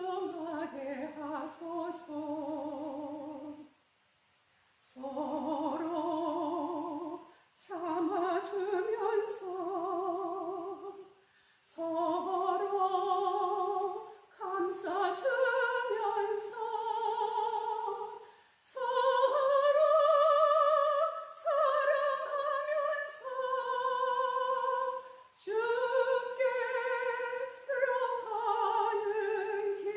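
A woman singing a slow gospel hymn in a classical, operatic style with strong vibrato. She sings in phrases of a few seconds, with brief breaks between them.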